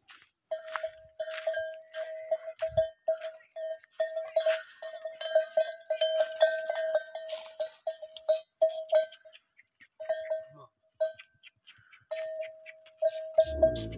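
A metal bell on a camel's neck collar clanking irregularly as the camel moves and browses, a few strikes a second, falling nearly silent for a couple of seconds past the middle. A low rumble comes in just before the end.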